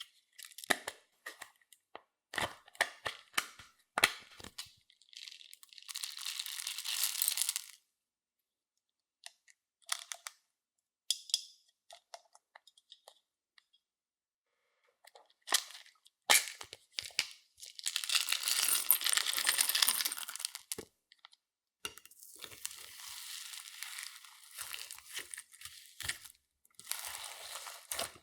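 Glittery slime being worked by hand: sharp sticky clicks and pops, then longer stretches of crackling, crinkly squishing, with short quiet pauses between.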